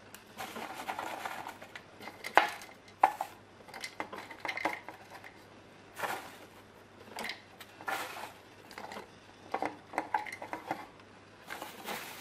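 Chunks of bark and charcoal potting mix clicking and knocking as they are dropped by hand into a plastic orchid pot, with a plastic bag rustling as the pieces are scooped out. The knocks come irregularly, the sharpest about two to three seconds in.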